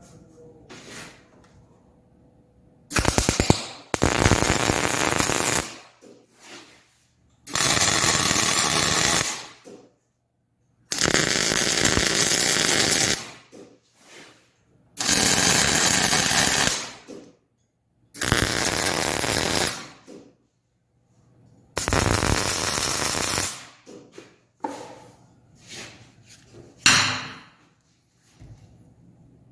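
MIG welder tacking heavy-wall steel pipe to a steel plate: about seven bursts of arc crackle, each around two seconds long, with short pauses between, then two brief blips near the end.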